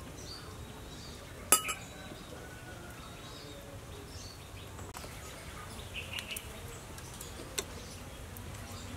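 A metal spoon clinking against dishes: one sharp clink about one and a half seconds in, then a few lighter clinks and taps later on.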